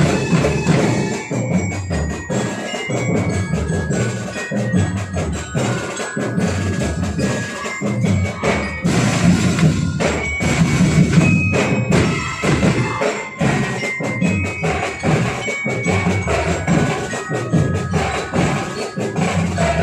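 Sinulog street-dance music: a steady drumbeat with a melody of short ringing bell-like notes on a mallet instrument such as a glockenspiel.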